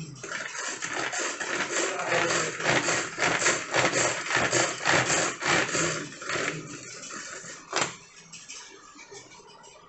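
Pull-cord manual vegetable chopper being pulled over and over, its blades spinning inside the plastic bowl and chopping onion, capsicum and tomato in a quick run of rasping strokes that stops after about six and a half seconds. A single sharp click follows near the end.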